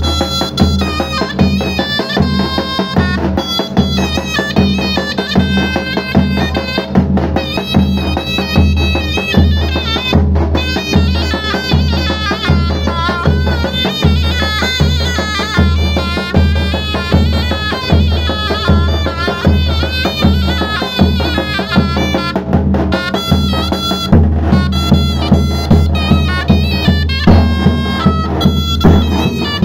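Zurna playing a loud, ornamented folk melody over a davul bass drum beaten with a mallet in a steady rhythm: a Turkish davul-zurna duo.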